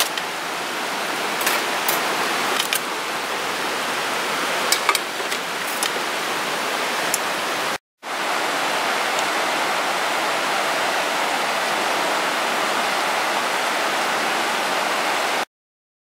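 Steady rushing of a river. In the first half a few light clicks of metal chopsticks on a steel plate sound over it. It breaks off for a moment near the middle and stops shortly before the end.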